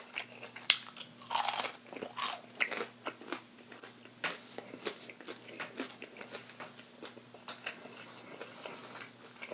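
Biting into a crispy battered onion ring close to the microphone: a sharp crack and loud crunches in the first couple of seconds, then steady chewing with smaller, quieter crunches.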